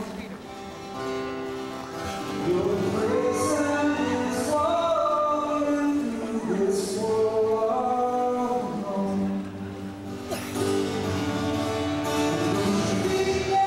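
A song: a voice singing over instrumental backing with guitar.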